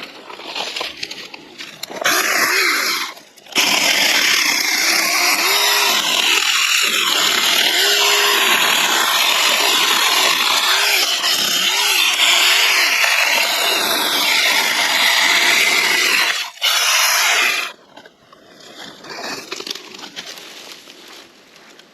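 Saker mini cordless electric chainsaw cutting cedar limbs: a short burst, then a long run of about fourteen seconds with one brief break. The motor's pitch dips and recovers again and again as the chain bites in. It stops near the end, leaving quieter scattered rustling.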